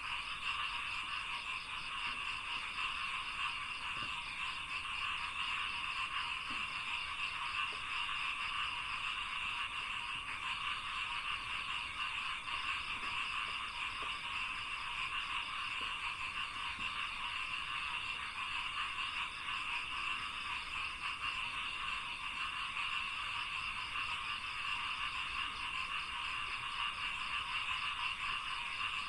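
Dense chorus of many frogs calling together in a rice paddy, a steady unbroken mass of rapid croaking that doesn't change over the whole stretch.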